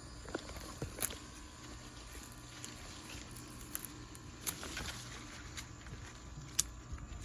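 Garden plants being cut and handled: a series of short, sharp snips and crackles of stems and leaves, spread unevenly through a quiet background.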